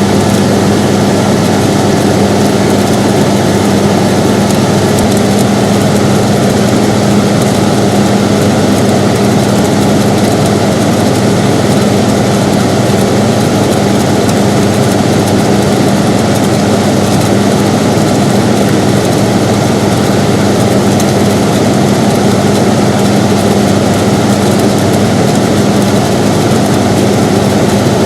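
Air conditioner running steadily: a constant, even fan noise over a low, steady hum, with no changes.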